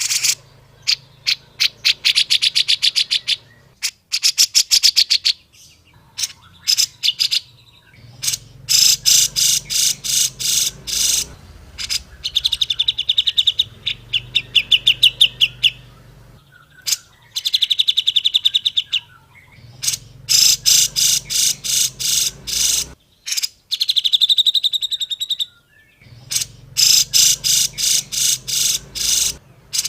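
Grey-cheeked bulbul (cucak jenggot) calling in loud bursts of fast, repeated chattering notes, some running into quick trills, with short pauses between bursts.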